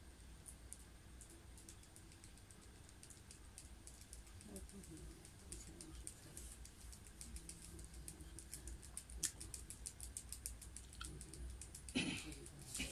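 Faint, rapid and irregular light clicking over a low steady hum, with a brief louder rustling burst near the end.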